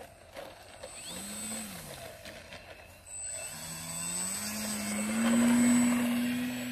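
Electric motor and propeller of a Multiplex PC-6 Porter model plane revving on grass: a short blip of throttle about a second in, then a whine that climbs in pitch from about three and a half seconds in and is loudest as the plane rolls close past.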